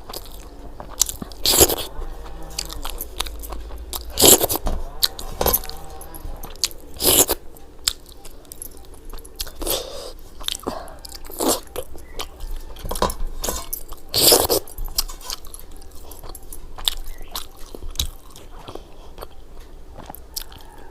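A person eating close to the microphone: steady chewing and biting, with several loud, crisp crunches spread through.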